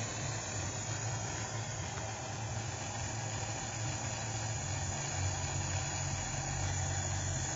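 A small jeweller's gas soldering torch burning steadily: an even hiss over a low rumble, with the flame held on a piece of silverwork being soldered.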